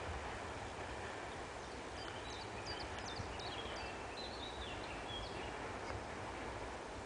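Steady low outdoor background noise, with a small songbird chirping a quick run of short high notes through the middle.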